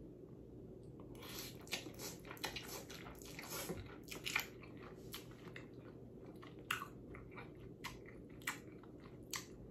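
Faint close-up chewing of a mouthful of very hot noodles: quick wet mouth clicks and smacks, coming thick and fast at first, then thinning to single sharp smacks in the second half.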